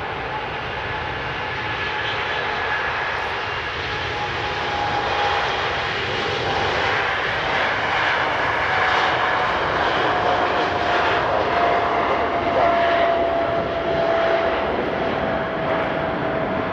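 Boeing 747 freighter's four jet engines at takeoff power during the takeoff roll and rotation: a loud, steady jet noise with a whining tone that falls slightly in pitch as the aircraft passes, growing louder about halfway through.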